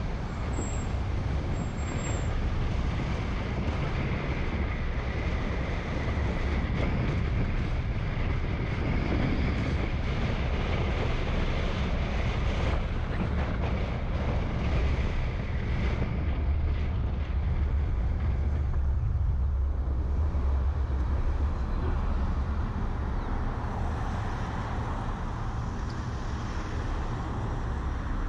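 Car driving through city traffic: a steady low road and engine rumble with wind noise on the microphone.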